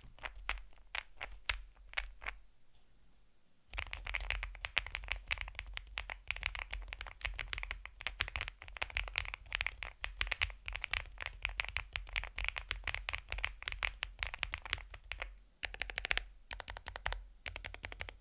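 Typing on a Wobkey Crush80 mechanical keyboard with BSUN Arctic switches. A few separate keystrokes come about two a second, then after a short lull there is fast, continuous typing with a brief break near the end.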